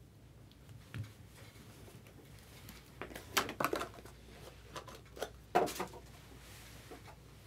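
Handling noises at a table: a dull thump about a second in, then a series of sharp clicks and rustles from about three to six seconds in.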